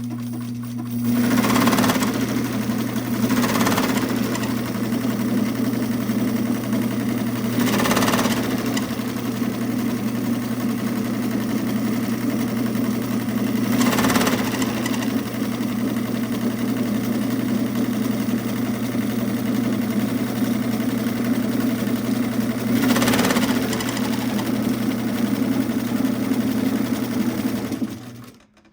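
White 658 sewing machine running a straight stitch: motor hum with the steady clatter of the needle mechanism. It starts about a second in, surges louder a few times as the pedal speed varies, and stops just before the end.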